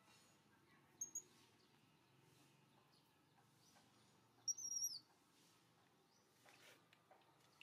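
Near silence broken by a small bird chirping: two quick high chirps about a second in, then one longer chirp about four and a half seconds in.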